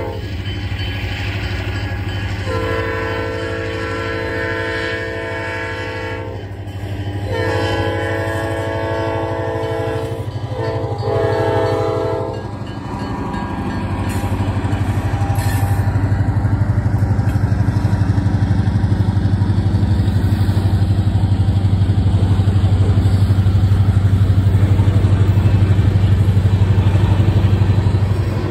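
Diesel freight locomotive sounding its multi-note horn for a grade crossing in the standard crossing pattern, two long blasts, a short one and a long one, over the rumble of its engine. From about halfway through the locomotive passes and the freight cars roll by with a steady, louder rumble.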